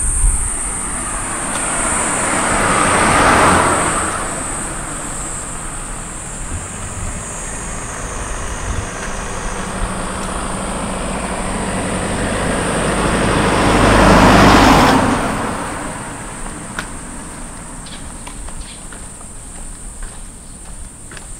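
Two cars pass one after the other, each rising and fading: the first about three seconds in, the second louder around fourteen seconds in. A steady high-pitched insect buzz carries on underneath.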